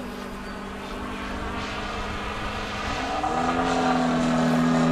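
Radio-controlled aerobatic model airplane's engine and propeller droning steadily. About three seconds in, the pitch rises and the sound grows louder.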